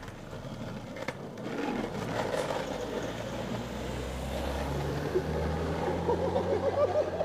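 Skateboard wheels rolling on street asphalt, a continuous rumble, with a steady low hum that swells about three seconds in.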